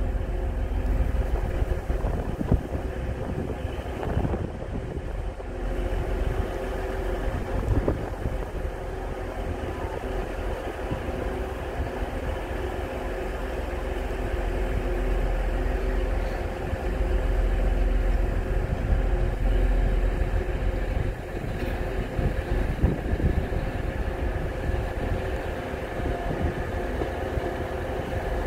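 Diesel multiple unit idling at the platform: a steady engine hum with a few held tones over an uneven low rumble. Near the end an arriving Northern Class 170 Turbostar diesel train approaches.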